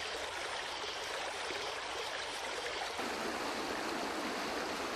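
Steady rushing of flowing river water. About three seconds in it changes to a slightly fuller, deeper rush.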